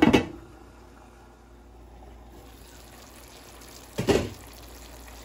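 A glass pot lid clatters onto a metal pan, then a faint steady simmer of the braise underneath. About four seconds in, another short clatter comes as the lid is lifted off.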